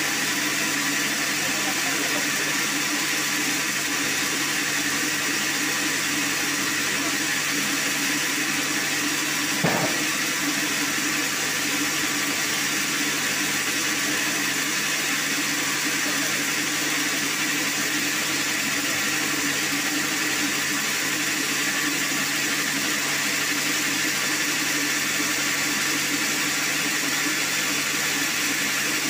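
Band sawmill running steadily with an even mechanical hum and hiss. There is a single knock about ten seconds in.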